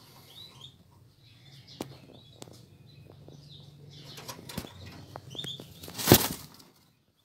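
Domestic pigeons flapping their wings, with one loud burst of flapping near the end before the sound cuts off abruptly. A few faint high chirps in between.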